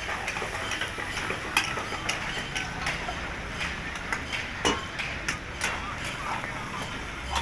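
Metal spatulas clinking and scraping against metal karahi woks as the lamb karahi is stirred: short, irregular clinks about twice a second over a steady background hiss.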